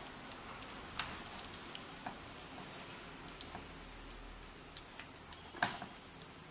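Silicone basting brush dabbing and stroking masala marinade onto a whole fish in a steel bowl: faint, irregular clicks and soft wet taps, with a sharper knock about five and a half seconds in.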